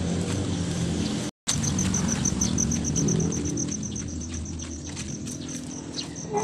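A high, rapidly pulsing insect chirp, about ten pulses a second, over a low steady background rumble. It starts just after a brief drop-out to silence about a second in and fades toward the end.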